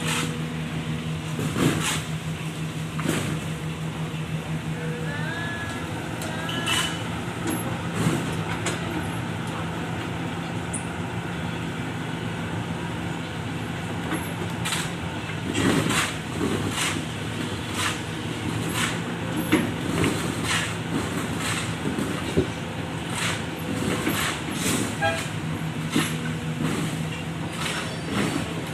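Diesel engine of a working excavator running steadily under load, with repeated clanks and knocks of the bucket and of soil dropping into a dump truck's steel bed.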